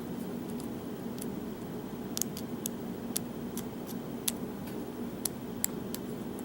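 Small, sharp metal clicks and ticks, about a dozen spread unevenly over several seconds, from a padlock and its parts being handled. A steady low hum runs underneath.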